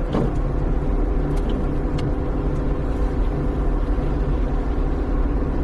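A motor vehicle running steadily: a low, even rumble with a few faint ticks.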